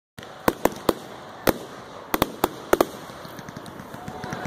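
Consumer fireworks going off: about nine sharp, irregular bangs over a steady crackling hiss of burning fountains. Near the end, sliding whistle tones start up.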